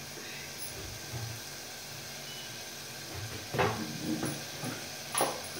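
Steady hiss of Maggi noodles simmering in an open aluminium pressure-cooker pot on a gas stove. Two light knocks of a steel spoon against the pot come about two-thirds of the way through and near the end.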